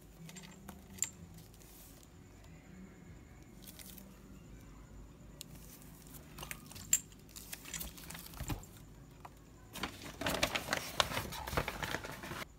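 Handling of packaged snacks and drink cartons: scattered light taps and clicks as the cartons are handled and set down, then a louder stretch of crinkling packaging about ten seconds in that stops just before the end.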